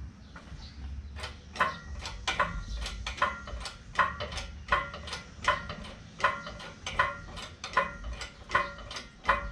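Hydraulic engine hoist being pumped: a metal clank with a short ring on each stroke of the jack handle, about once every three-quarters of a second, a dozen times.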